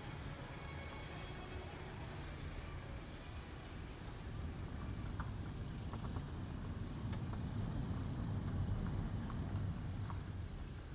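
Car driving along a road: a steady low rumble of engine and tyres that swells about two thirds of the way in, then eases near the end.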